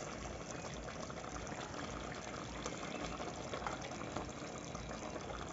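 Wet fry chicken sizzling and bubbling in its pan on a gas stove: a steady hiss scattered with small crackles.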